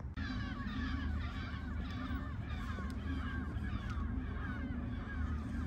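Many birds calling over one another in a continuous, busy chatter of short harsh calls, over a steady low background rumble.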